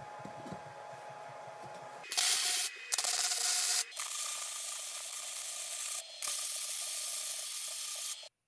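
Electric arc welding a square steel tube onto a steel plate: four bursts of loud hiss with short breaks between them, starting about two seconds in, after a few faint clicks.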